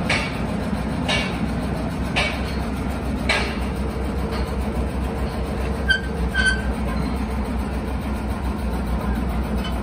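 Steady low hum of workshop machinery running, with soft swishing sounds about once a second early on and two short ringing metallic clinks around six seconds in, as a steel cylinder rod is rolled along a steel bar.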